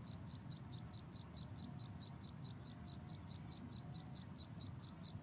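Faint, steady high-pitched chirping: short, evenly spaced pulses about four a second, over a low rumble.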